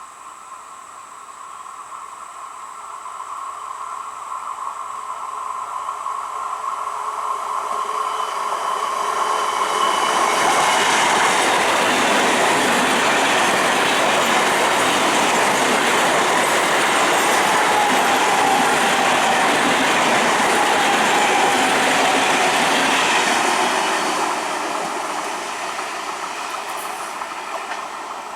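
Indian Railways ICF electric multiple unit (EMU) local train passing on its track. It comes closer for about ten seconds, runs past loudly for about thirteen, then fades away. A faint whine slowly drops in pitch as it goes by.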